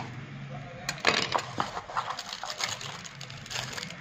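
Handling noise during a phone unboxing: a quick cluster of sharp clicks and crinkles about a second in, then scattered lighter taps and rustles.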